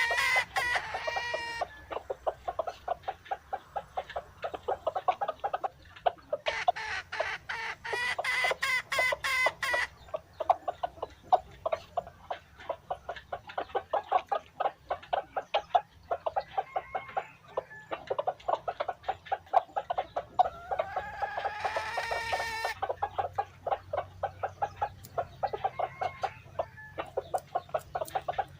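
Dong Tao chickens clucking rapidly and continuously, with three louder, drawn-out calls standing out over the clucking.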